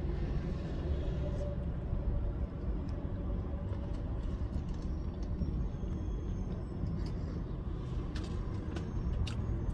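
Low, uneven rumble heard inside a parked car, with a few sharp clicks near the end.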